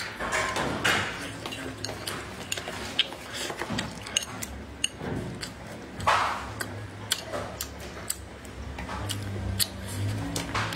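Close-up eating sounds of a person chewing a mouthful of cured pork and rice: wet smacking and crackling mouth noises with many small clicks and a few short breathy smears.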